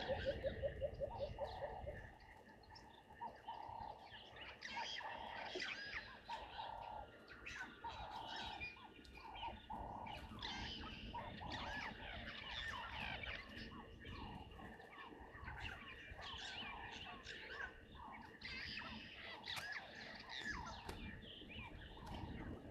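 Wild birds chirping and calling in a chorus of many short, overlapping notes. A loud, rhythmic pulsing animal call carries on for the first two seconds, then stops.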